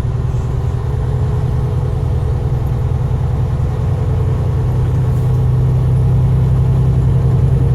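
Semi truck's diesel engine running steadily while driving, heard from inside the cab as a low drone that grows slightly louder toward the end.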